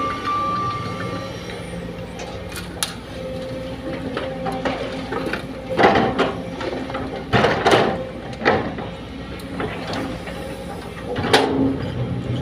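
Sumitomo excavator's diesel engine running steadily under load, with several loud clanks and scrapes, about four in the second half, as the bucket digs and handles soil.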